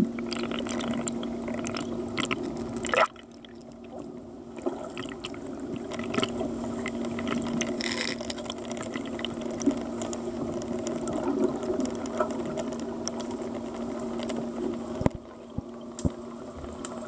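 Swimming-pool water heard underwater: a steady low hum with rushing, bubbling water noise as a monofin swimmer moves through the water. Near the end the hum drops away and a few sharp knocks are heard.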